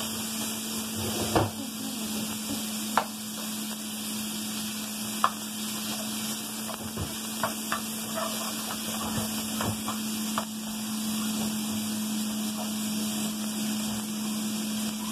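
Chopped bacon sizzling in a nonstick frying pan, with a spatula scraping and knocking against the pan now and then, most often in the first ten seconds. A steady low hum runs underneath.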